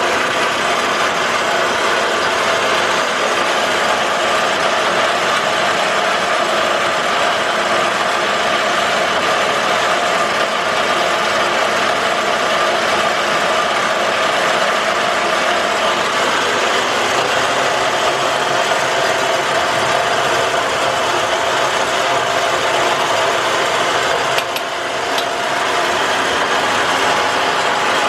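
A metalworking machine tool running steadily, with a constant mechanical hum. Its tone shifts slightly about halfway through, and there is a brief drop near the end.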